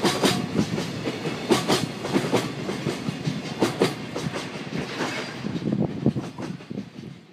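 Wheels of freight container wagons clacking over the rail joints as the tail of a freight train passes and draws away. The clacks fade in the last couple of seconds.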